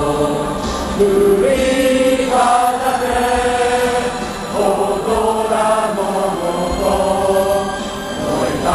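Football supporters' end singing a chant together, many voices in unison holding a melody that moves from note to note without a break.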